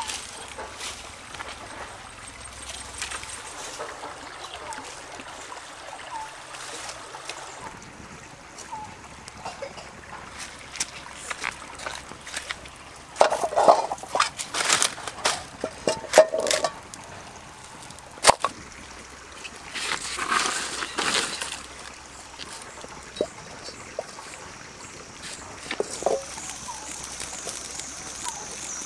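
Stream water trickling steadily over rocks, with bursts of rustling and sharp snaps from dry sticks and leaf litter being gathered and handled, loudest about halfway through.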